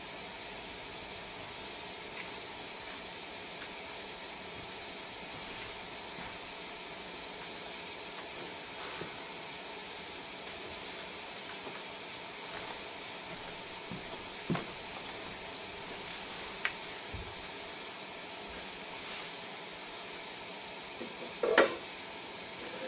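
Steady hiss of the recording's background noise in a quiet room, with a few faint clicks and knocks in the second half and one brief louder sound near the end.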